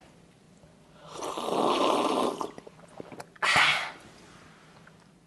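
Loud slurping of tea from cups: one long slurp, then a shorter, sharper one about a second later.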